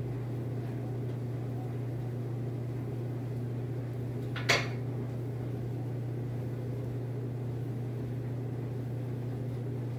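A single sharp knock on the vanity cabinet, about halfway through, as a gel bumper pad is fitted to the cabinet door. A steady low hum runs underneath.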